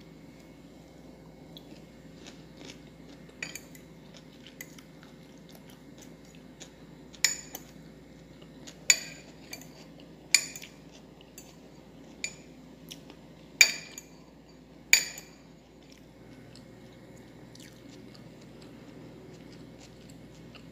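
Metal cutlery clinking against a glass bowl: a series of sharp, ringing clinks a second or two apart, the loudest bunched in the middle.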